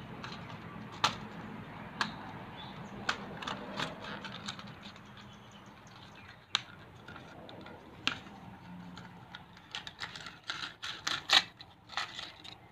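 A small cardboard box of piston rings being opened by hand and its paper wrapping handled: scattered clicks and rustles, coming thick and fast near the end.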